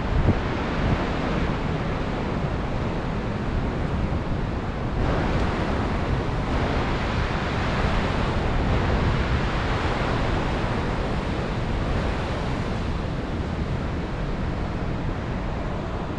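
Heavy ocean surf breaking over rocks and sea stacks, a continuous rushing wash that swells louder about five seconds in.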